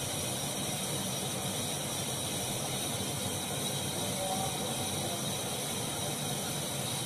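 Steady background hiss with no distinct events.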